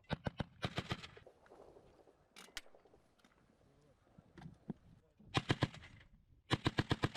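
Rifle fire in short bursts and single shots, with sharp cracks coming in clusters. A pair of shots falls mid-way and a burst of about five follows. Near the end comes a rapid automatic burst of roughly ten shots a second.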